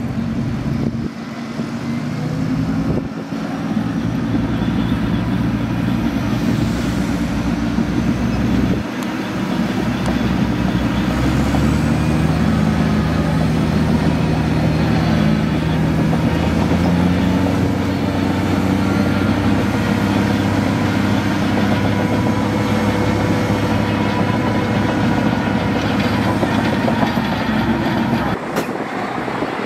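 Heavy diesel engine of earthmoving machinery working, its pitch shifting up and down as the load changes, and easing off near the end.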